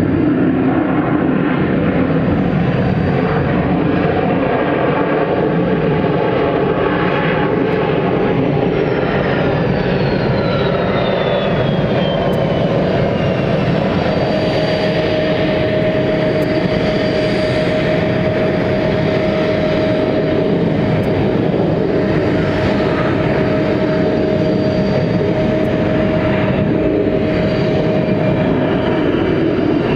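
Airliner jet engines running on the runway: a steady, loud rumble. A high whine glides down in pitch between about eight and thirteen seconds in, and a steady tone sets in about halfway through.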